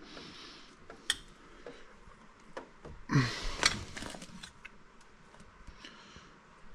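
Parts being handled: light clicks and knocks, with a louder scraping rustle about three seconds in.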